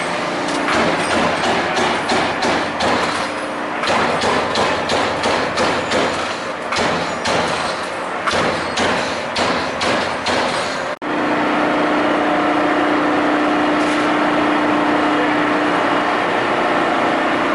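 CNC turret punch press hitting sheet metal in a rapid, uneven run of punch strokes, several a second. About two-thirds of the way in this breaks off abruptly into the press's steady running hum with a constant low tone.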